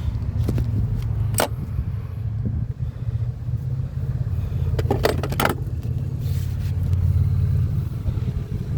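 Steady low rumble, with one sharp click about a second and a half in and a quick run of light metallic clicks around five seconds in, as loose engine parts are handled.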